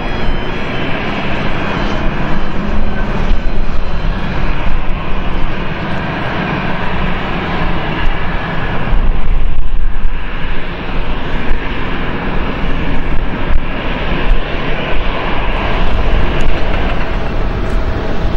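Jet noise from a Bombardier Global Express business jet landing: a steady engine rush with a faint whine, and a deeper rumble about halfway through as it touches down. Near the end the sound gives way to an Airbus A400M turboprop transport on approach.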